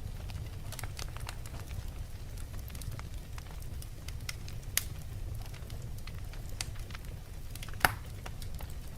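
Fire in a fireplace crackling over a steady low rumble, with scattered small pops and two louder pops, one a little before 5 seconds in and one near 8 seconds in.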